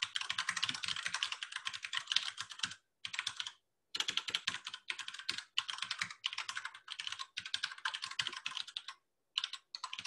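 Fast typing on a computer keyboard: quick runs of keystrokes broken by a few short pauses, around three and four seconds in and again near nine seconds.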